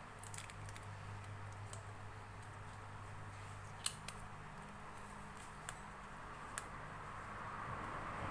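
A few small sharp clicks and taps, the kind made when handling parts and tools while working on a phone. They sound over a steady low hum, with the loudest click a little before halfway.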